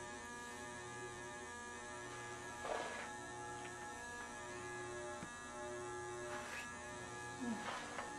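Steady electrical mains hum, with a few faint, brief sounds about a third of the way in and again near the end.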